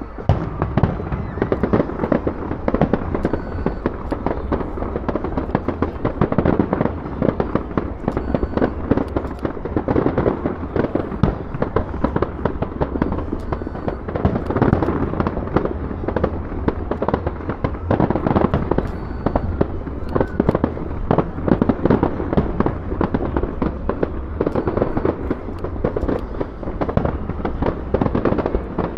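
Fireworks display going off: a continuous barrage of rapid bangs and crackles that overlap with hardly a break.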